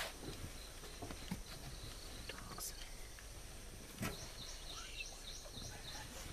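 Quiet outdoor ambience with a few soft knocks. About halfway through comes a quick run of high, evenly repeated chirping calls, roughly four a second, lasting a couple of seconds.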